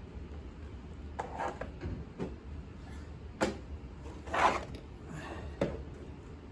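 Handling sounds of a boxed slot car and its packaging being unpacked: a few sharp knocks and clicks, the loudest and longest about four and a half seconds in.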